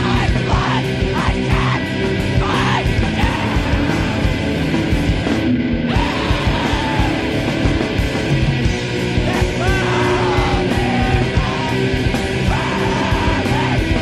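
Loud, dense heavy rock song with shouted vocals over drums, playing steadily.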